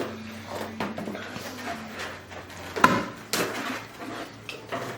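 Cardboard box and packing being handled as a sewing machine is lifted out: scraping and rustling, with a sharp knock a little before three seconds in.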